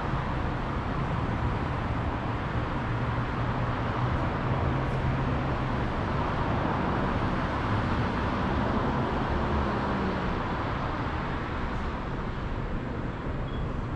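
Steady city street traffic noise, with the low hum of a vehicle engine through the first half.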